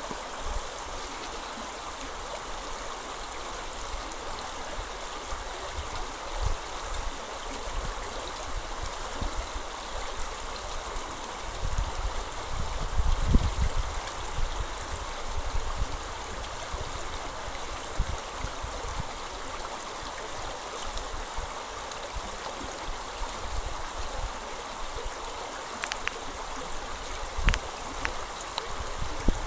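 Shallow brook running over a gravel and stone bed, a steady babble of small riffles. A low rumble swells briefly about halfway through, and a few faint clicks come near the end.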